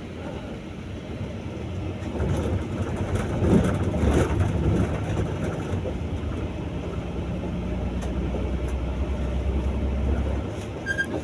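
Bus engine and road noise heard from inside the cab while driving, a steady low rumble that swells around four seconds in. A brief high beep sounds near the end.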